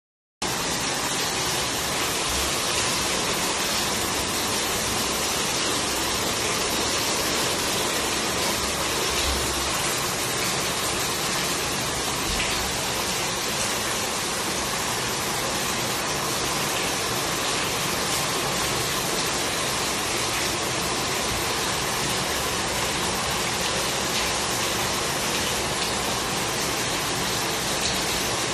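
Steady rush of heavy rain pouring in through a broken ceiling and splashing into water standing on the floor.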